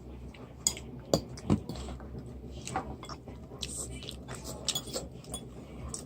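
Eating sounds from a spaghetti meal: chewing and soft mouth noises with a few sharp clinks of cutlery against a dish, the loudest in the first second and a half.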